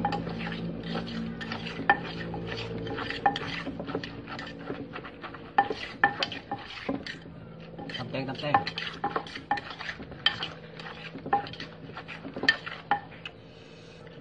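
Wooden pestle knocking and a metal spoon clinking and scraping inside a mortar as a spicy salad is pounded and tossed: a quick, uneven run of knocks and clinks, a few a second, thinning out near the end.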